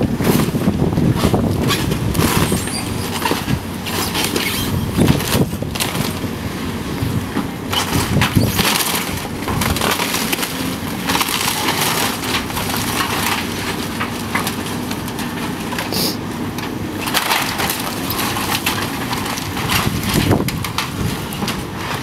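Wooden building being torn down by demolition machinery: timber cracking, splintering and crushing, with many sharp snaps and crashes of falling debris over a low rumble that is strongest in the first half.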